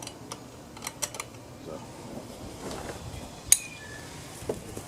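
Light metallic clicks and clinks of hand tools and engine parts being handled, with one sharp clink about three and a half seconds in that rings briefly.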